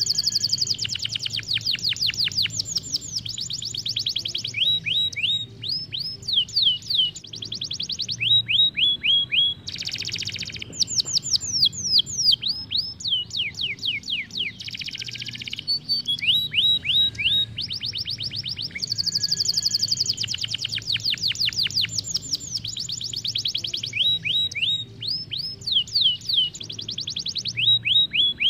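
Isabel domestic canary singing a long rolling song. It gives phrase after phrase of fast, evenly repeated notes, each phrase a quick trill of one note, broken now and then by short harsh buzzy phrases.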